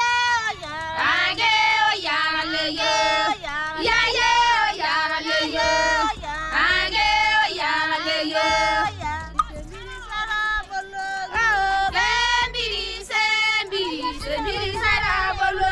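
Music with a high singing voice carrying the melody over a low bass line.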